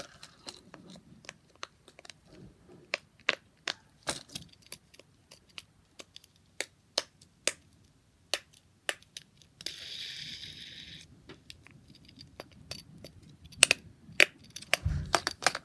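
Small plastic fidget toys being handled: sharp, irregular clicks and taps, with a short crinkling hiss about ten seconds in and a dull thump near the end.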